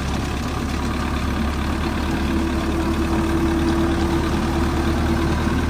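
Belarus tractor's diesel engine running steadily under load as it pulls a potato digger through the soil. A steady droning note comes in about two seconds in.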